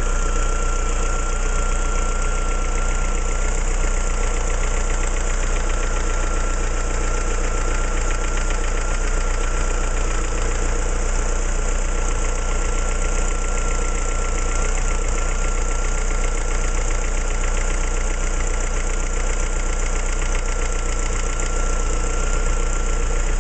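Opel C16XE 1.6-litre 16-valve four-cylinder engine idling steadily, with a thin high whine running through it.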